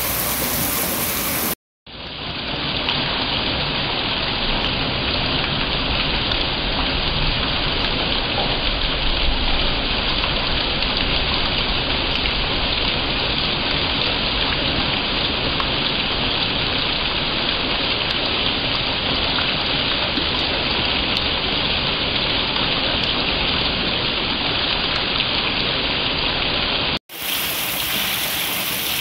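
Heavy rain pouring steadily, a dense even hiss. It is broken by two brief cuts to silence, one about two seconds in and one near the end.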